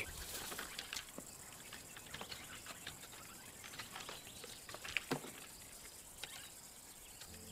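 Faint scratches and clicks of a young lion's claws on tree bark as it climbs the trunk, over a quiet background hiss; the sharpest scrape comes about five seconds in.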